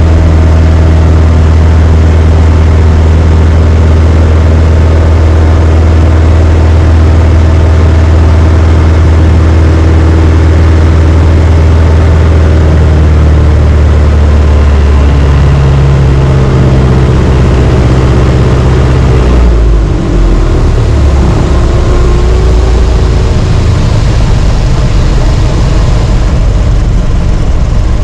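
A Citabria's propeller engine running steadily, heard inside the cockpit. About twenty seconds in the steady engine note drops away and gives way to a rougher, windier sound, consistent with power being pulled back.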